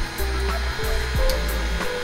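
Heat gun blowing hot air with a steady hiss, softening the adhesive along the edge of automotive window tint film. Background music with a steady beat plays over it.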